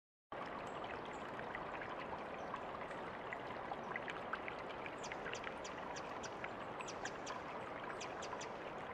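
Quiet, steady running-water ambience, like a stream or rain, with scattered small droplet plinks that come more often in the second half. It serves as the ambient intro bed of a chillstep track.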